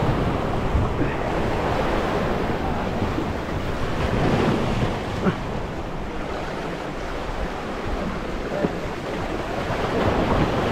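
Sea surf breaking and washing over shoreline rocks, with wind buffeting the microphone.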